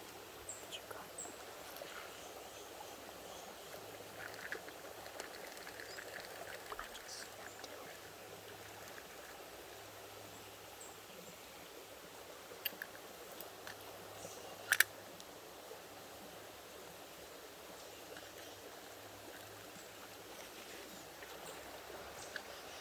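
Creek water flowing steadily, with a few sharp clicks; the loudest comes about two-thirds of the way through.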